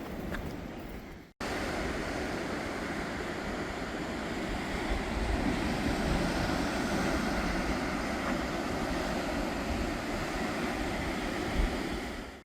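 Ocean surf washing and breaking, a steady rushing that swells around the middle, with wind on the microphone. The sound drops out briefly about a second in, then resumes.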